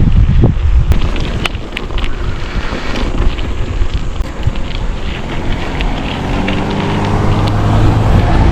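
Wind buffeting the microphone on a moving bicycle, a loud low rumble with scattered light clicks. A steady low hum comes in about halfway through and grows louder toward the end.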